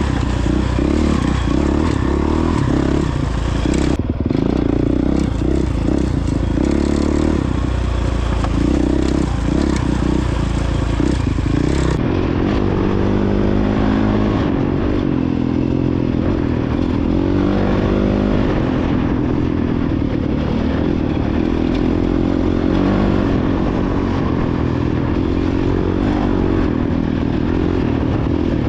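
Honda CRF450X's 450 cc single-cylinder four-stroke engine running on an off-road trail ride, its revs rising and falling as the rider works the throttle, with rattling and scraping from the bike over rough ground.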